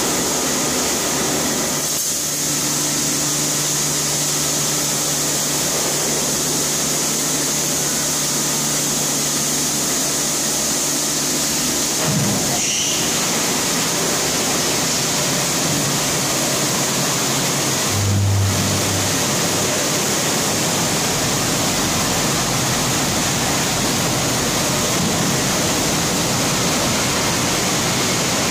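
Tammermatic RoboJet tunnel car wash running: a steady rush of water spray and machinery noise. A low hum under it stops about twelve seconds in with a brief knock, and a short low hum comes about eighteen seconds in.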